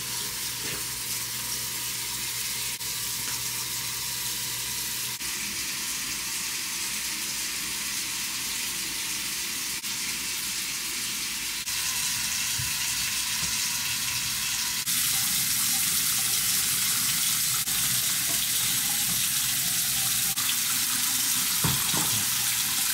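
Bathroom faucet running into a sink: a steady splashing hiss of tap water, stepping abruptly louder about halfway through and again a few seconds later.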